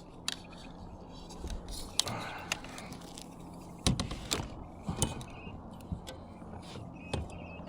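Scattered clicks and knocks of gear being handled in a fishing kayak, with louder thumps about two and four seconds in.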